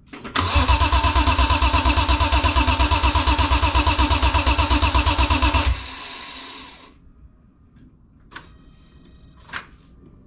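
BMW E46 M3's S54 inline-six being cranked by its starter for about five seconds, a fast even pulsing that never catches and revs up: a failed first start of a freshly built engine. The cranking cuts off suddenly, and two light clicks follow.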